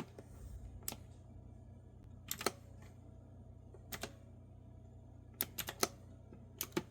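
Clicky retro-style round-key keyboard being typed on slowly: scattered keystrokes in ones, twos and threes with pauses of a second or more between them.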